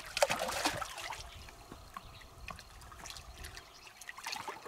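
A large hooked carp thrashing and splashing at the water's surface as it is played on the line. The splashing is loudest in the first second, then smaller splashes follow, with another short burst near the end.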